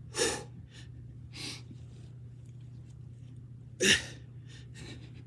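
A man breathing hard and sharply while straining through weighted push-ups, several forceful breaths with the loudest about four seconds in, over a steady low hum.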